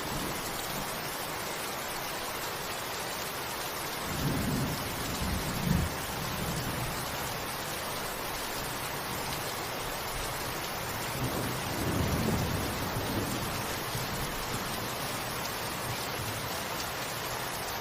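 Steady rain with two low rumbles of thunder, the first about four seconds in with a sharper crack near its end, the second about eleven seconds in.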